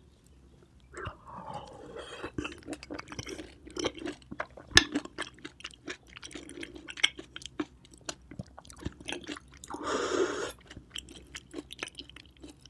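Close-miked eating of a grilled oyster: wet chewing and lip smacking with many small clicks, and one longer, louder wet sound about ten seconds in.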